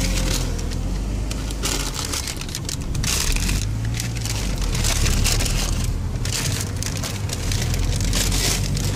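A car's engine and road noise heard from inside the cabin as it drives off, with a crackling rustle that comes and goes in about three spells.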